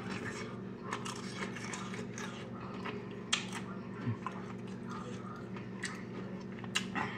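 Close-up chewing and biting of a spoonful of Rotel cheese dip mixed with Doritos chips, with irregular crunches and wet mouth clicks. A sharp click about three seconds in and another near the end.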